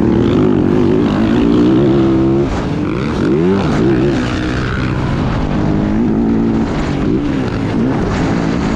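Motocross dirt bike engine running hard at race speed. The revs hold high for about two seconds, drop and climb sharply again around three seconds in, then rise and fall more gently.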